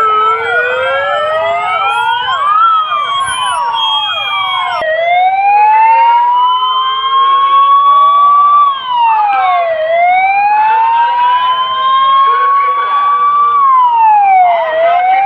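Several police vehicle sirens wailing at once, out of step with each other. From about five seconds in one siren dominates, rising slowly in pitch and dropping back about every five seconds.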